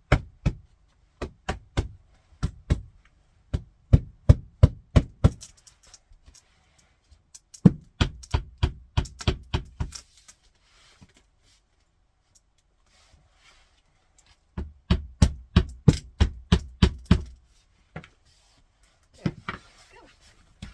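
Mallet tapping engineered hardwood floorboards together, in several runs of quick knocks, each a second or two long, with pauses between.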